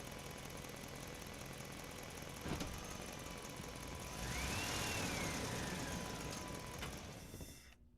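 A radio-controlled truck running, with a steady thin whine and mechanical rattle, a sharp click about two and a half seconds in, then a louder stretch from about four seconds where the whine rises and falls in pitch as it speeds up and slows. The sound cuts off abruptly just before the end.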